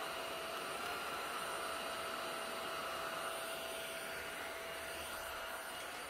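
Cuckoo PowerClone cordless stick vacuum running: a steady rushing motor noise with a thin whine through it.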